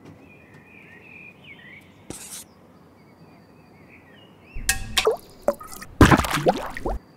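Faint high bird-like chirps, then two loud rushing noises near the end, the second lasting about a second, with pitches gliding inside them.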